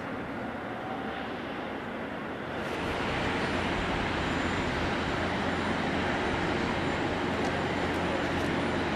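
Distant jet noise from a Boeing 777-300ER's GE90 turbofan engines: a steady roar that grows louder about two and a half seconds in and then holds, as the airliner spools up to takeoff thrust and begins its takeoff roll.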